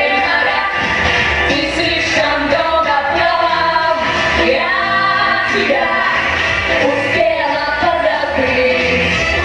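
A pop song sung live by a mixed group of singers, women and a man, over instrumental backing.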